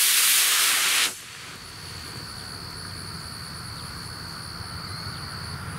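Model rocket motor (an Estes C6-7) burning as the rocket climbs: a loud, even hiss that cuts off sharply about a second in at burnout.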